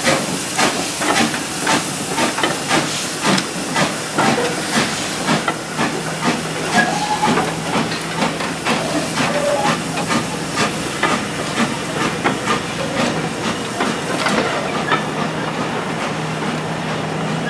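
Saddle-tank steam locomotive pulling away from the station with a train of coaches: regular exhaust chuffs about two a second over a steady steam hiss, with the coaches' wheels rolling past on the track.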